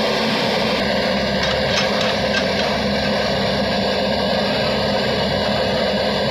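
JCB JS140 tracked excavator's diesel engine running steadily as the machine digs. A few faint clinks come about one and a half to two and a half seconds in.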